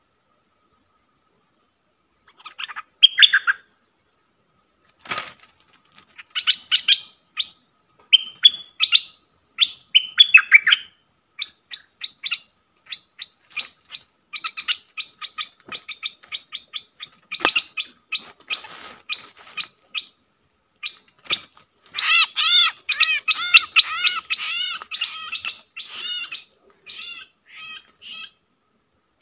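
Bulbuls calling back and forth, a caged decoy and a wild bird at the cage, in quick bursts of chirps and harsh chatter, loudest and densest in a long run after about 22 seconds. A few sharp knocks break in now and then.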